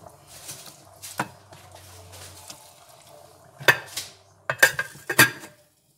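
Metal clanking against a stainless steel cooking pot: a single clank, then a quick run of sharp clanks near the end, each ringing briefly.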